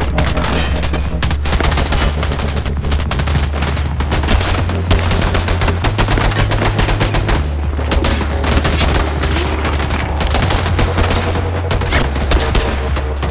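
Heavy gunfire from a shootout: many rapid, overlapping shots with no pause, over a steady low rumble.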